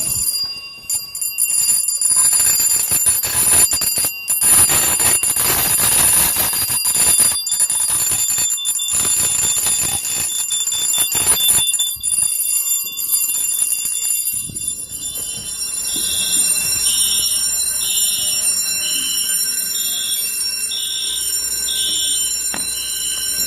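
Many fire alarm devices sounding at once: electric fire alarm bells ringing over several steady high-pitched alarm tones. The bell ringing thins out about halfway through, and from then on a smoke alarm beeps about once a second.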